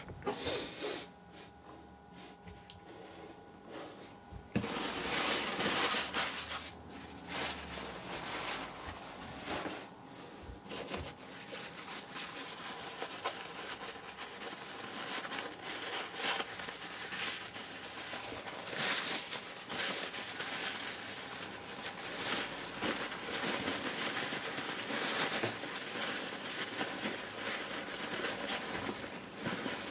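Thin paper packing wrap rustling and crinkling as hands pull it away from the plants in a cardboard box. It starts about four seconds in and goes on steadily, with many small irregular crackles.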